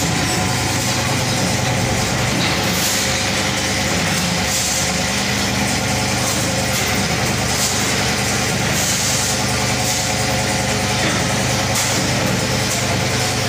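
Powder coating plant machinery running with a steady low hum, broken every couple of seconds by short bursts of hiss.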